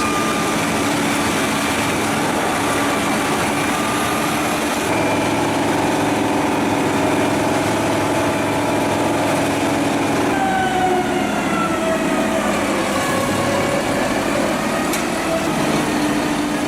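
Large diesel-driven wood chipper running under load: a steady mechanical din with engine tones that shift abruptly about five seconds in and again about ten seconds in, then slowly rise and fall in pitch.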